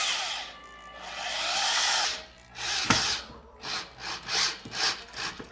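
Power drill with an extension driving a screw into the sofa's wooden frame to fasten a leg, in a few longer runs and then short bursts as the screw is snugged tight. There is a sharp click about three seconds in.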